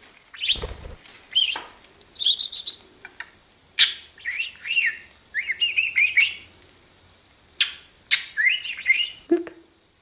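Budgerigar chirping and warbling: bursts of quick, high, rising and falling chirps, with a couple of sharp clicks among them.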